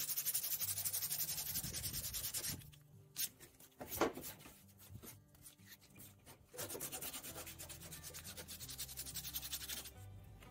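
Hand-sanding body filler on a car's steel fender with sandpaper: quick back-and-forth rubbing strokes, with the paper loading up with filler dust. The sanding stops about two and a half seconds in, with a couple of light taps, then starts again more softly.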